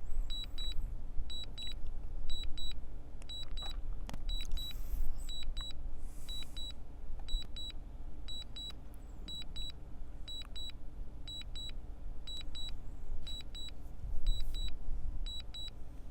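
Drone remote controller beeping steady pairs of short high beeps about once a second, the alert it gives while the drone is returning home. The beeps sit over a steady low rumble.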